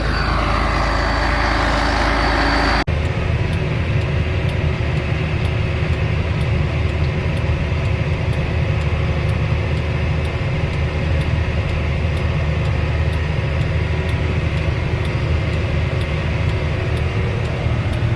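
Heavy farm machinery running steadily at work, heard from inside the cab: a continuous low engine drone, with a faint, even ticking above it. The sound changes abruptly about three seconds in, where the video cuts.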